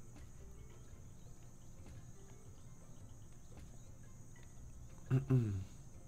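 Quiet slot-machine game soundtrack: a soft savanna-style ambience of insect chirping over a low hum while the reels spin. About five seconds in there is a brief pitched sound whose tones fall.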